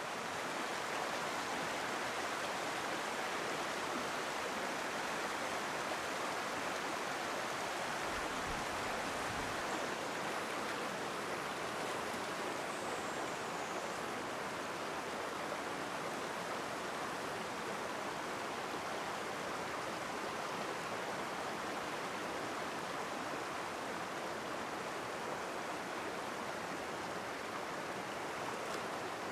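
Clear mountain stream running over rocks: a steady rush of water.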